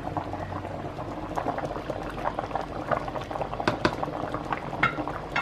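Pot of pork sinigang soup at a rolling boil, a steady bubbling made of many small pops. A few sharper clicks about four seconds in as a ladle stirs through the pot.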